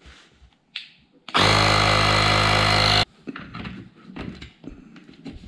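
Small cordless portable air compressor switched on and running loud and steady for under two seconds, then cut off sharply. A few clicks come before it, and light handling knocks follow.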